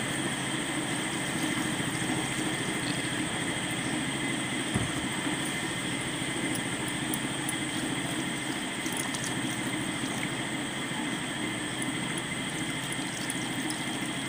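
Water poured in a steady stream into an iron kadhai of fried ground-corn paste while a metal spatula stirs it, over a constant mechanical hum. One soft knock about five seconds in.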